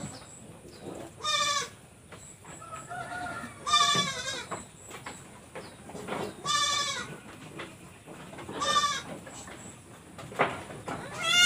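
Goat bleating repeatedly: short, wavering cries of about half a second each, one every two to three seconds, with fainter bleats in between.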